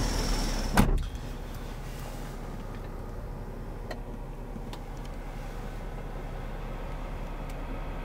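A single loud thump just under a second in, after which the louder clatter stops. Then a steady low hum fills the car's cabin, with a few faint clicks.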